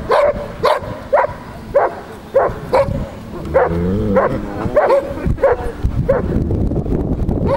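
Belgian Malinois barking repeatedly, about two barks a second, with a short break a little past the middle of the sequence.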